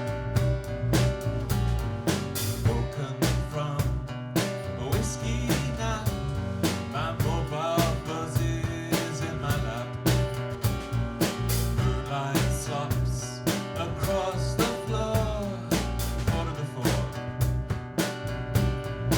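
Live band playing an instrumental passage: a drum kit keeps a steady beat under guitar, with a lead melody line sliding in pitch in places.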